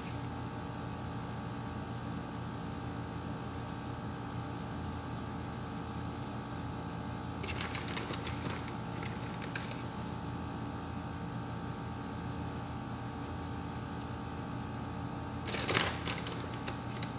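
Plastic bag of shredded cheese crinkling as a hand reaches into it, once about halfway through and more loudly near the end, over a steady machine hum.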